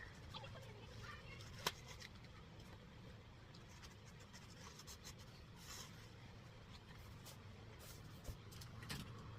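Faint scratching and rubbing with a few sharp clicks, the loudest about two seconds in: a spline roller tool pressing rubber spline and screen mesh into the channel of a sliding screen door frame.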